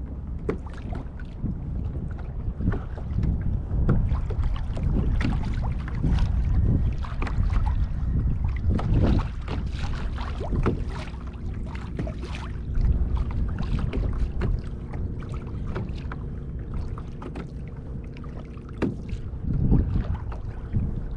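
Water splashing and lapping against a plastic kayak hull in irregular little bursts, over the low rumble of wind on the microphone.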